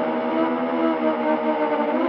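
Six-inch FPV quadcopter's 2207 1650kv brushless motors on a 6S battery whining in flight, several tones held together and drifting slightly in pitch with the throttle.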